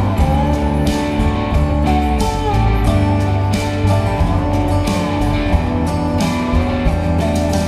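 Background music: a song with guitar, bass and a steady beat.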